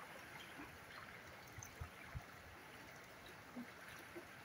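Faint, steady rush of flowing river water, with two soft low bumps about two seconds in.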